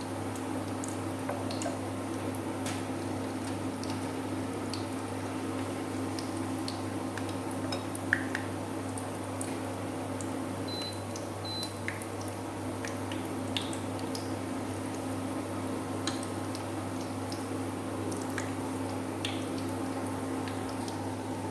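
Battered okra deep-frying in hot oil, sizzling steadily with scattered small pops and one louder pop about eight seconds in, over a steady low hum.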